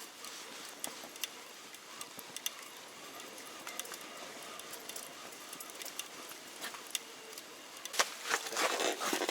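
Scattered small ticks and clicks over a faint hiss from a winter fishing rod's reel and line as a fish is wound up through the ice hole from deep water. Near the end the clicking gets louder, with rustling as the fish nears the hole.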